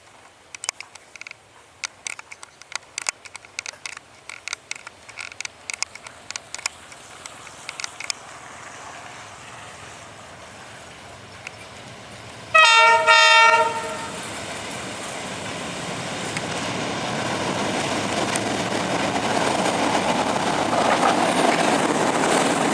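Diesel train locomotive horn giving two short blasts close together about halfway through, then the train approaching, its rumble and wheel noise growing steadily louder. Scattered sharp clicks are heard in the first part.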